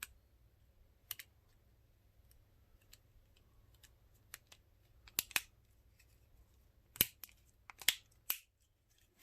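Small plastic clicks and snaps from a Samsung Gusto flip phone's housing and side buttons being fitted back together: a few isolated clicks, then a denser run of sharper ones in the second half.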